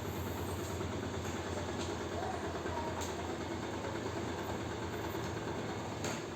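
Steady low machine hum and hiss, with a few faint clicks.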